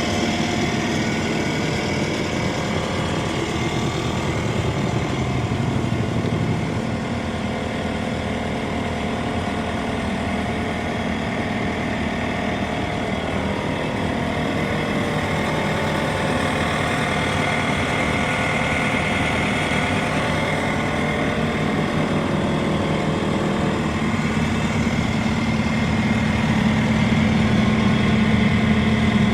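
Bobcat T550 compact track loader's diesel engine running steadily, its pitch drifting up and down a little through the middle and getting somewhat louder near the end.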